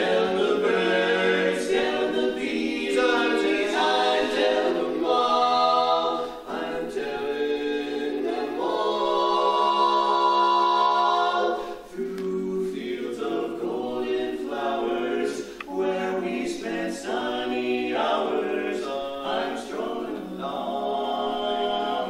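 Male barbershop quartet singing a cappella in four-part close harmony, with one long held chord lasting about three seconds near the middle.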